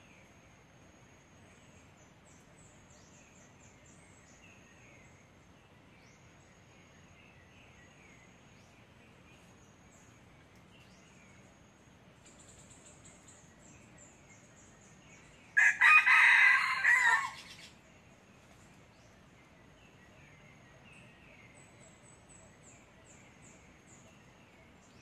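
A red junglefowl cock crows once, a single loud crow about two seconds long, a little past the middle. Faint bird twitters and a thin steady high insect tone sit behind it.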